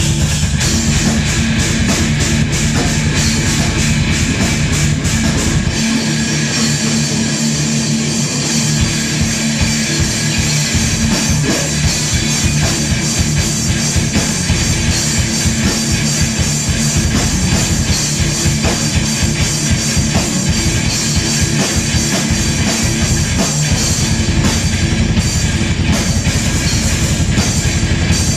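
A live rock band playing loud and dense, with electric guitars, bass guitar and drum kit. The deepest bass thins out for a few seconds about six seconds in, then comes back.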